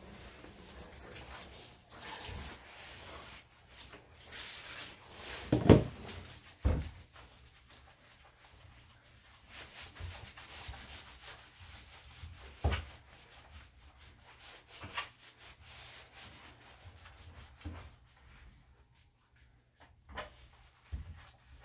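Hands rubbing and scrubbing the wet long coat of a Lhasa Apso during a bath, an irregular soft rubbing, with a few sharp knocks, the loudest about six seconds in.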